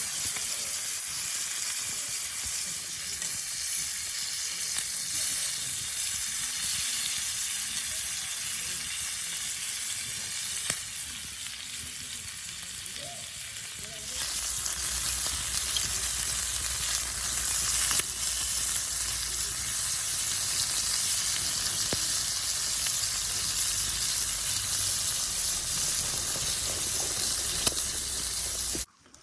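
Food sizzling as it fries in a pan over a campfire, a steady hissing sizzle; the sound shifts about halfway through, with more low rumble underneath, and cuts off abruptly near the end.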